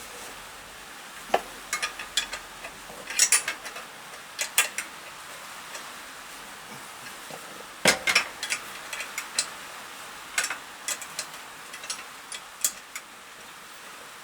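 Irregular metallic clinks and clicks of a spanner or socket working on a 10 mm nut and metal fittings as the nut holding the chain guard is undone on a Yamaha XS650, in scattered clusters with short gaps.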